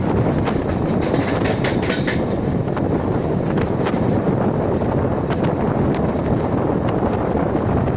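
Passenger train running on the rails: a steady rumble with scattered clicks of wheels over rail joints.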